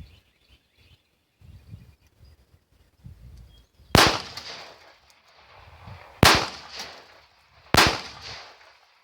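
Three pistol shots from a .380 Taurus TCP firing Winchester jacketed hollow points into a water-filled metal bucket: the first about four seconds in, then two more about two and a half and one and a half seconds apart. Each is a sharp crack that rings on briefly.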